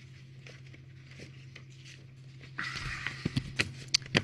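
Papers and a manila folder rustling as they are handled on a desk, starting about two and a half seconds in, with several sharp taps near the end. A steady low electrical hum runs underneath.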